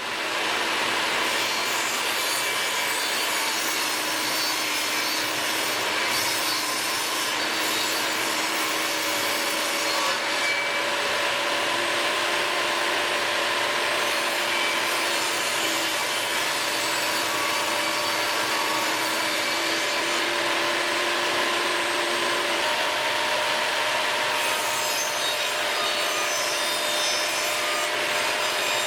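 Pine wood being worked by a tool in one continuous, even rasping sound with a steady hum under it, without the pauses of separate strokes.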